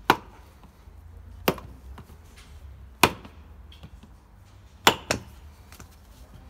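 Rubber mallet striking the final drive housing of a BMW R 1100 GS to knock its cover loose: five sharp blows, roughly a second and a half apart, the last two in quick succession.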